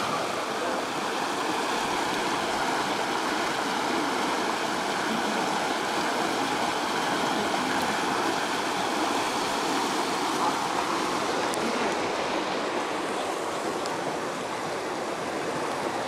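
River water rushing over rocks in shallow rapids: a steady, even rush that eases slightly near the end.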